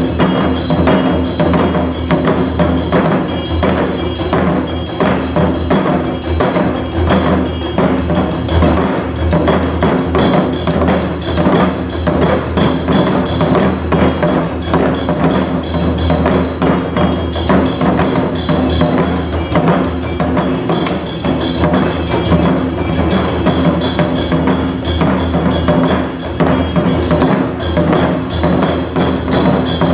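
Japanese taiko drums played in a dense, steady rhythm over a modern instrumental backing with sustained pitched tones, with no kakegoe shouts from the drummers.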